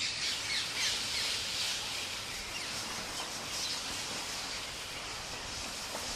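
A large flock of rose-ringed parakeets calling all at once: a dense, steady mass of many short overlapping high calls.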